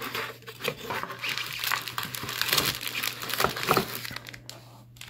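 Cardboard box flaps and plastic bags rustling and crinkling in irregular bursts as a boxed CPU water block is handled and lifted out of its packaging.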